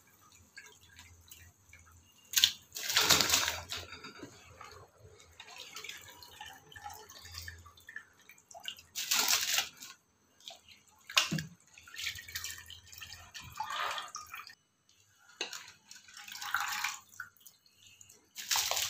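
Soaked biryani rice being tipped in batches into a large pot of boiling water, making a series of splashes, the loudest about three seconds in, at about nine seconds and near the end.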